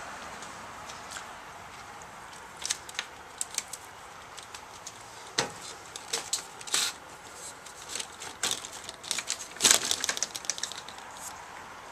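Scattered light clicks and rattles from an RV's entry door and screen door being handled, with a louder cluster about ten seconds in.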